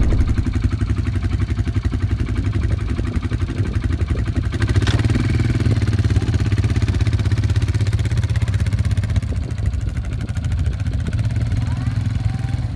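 Kymco MXU quad bike engine running steadily, a low even drone.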